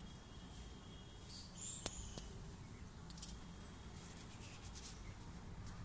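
Faint outdoor background noise with a few sharp clicks about two and three seconds in and brief high chirps shortly before them.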